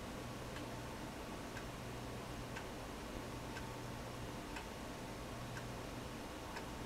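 Faint room tone: a low steady hum and hiss with a soft tick about once a second.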